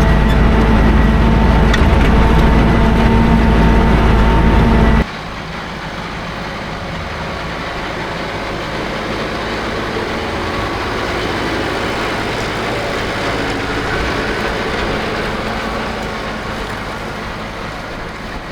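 Tractor engine running steadily while ploughing. About five seconds in the sound cuts abruptly to a quieter engine that slowly swells and then eases off.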